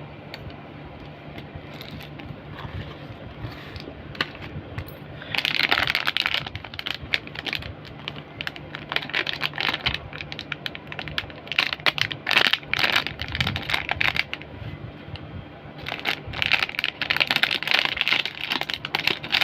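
Small electronic parts and their plastic packaging being handled: irregular bursts of rustling, crinkling and light clicks and clinks, starting about five seconds in. A faint steady low hum sits underneath.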